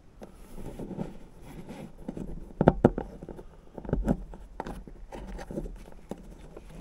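Hands working a truck's toolbox-lid release cable and its plastic sheath against the step: irregular scraping and rustling with a few sharp clicks, the loudest a pair near the three-second mark and two more about a second and a second and a half later.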